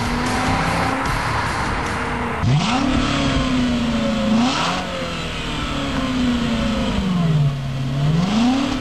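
VW Passat W8's 4.0-litre eight-cylinder engine heard at its quad tailpipes, revved with the car standing. After a short spell of steady running, the revs rise sharply about two and a half seconds in, hold, and drop. They then sink slowly before climbing sharply again near the end.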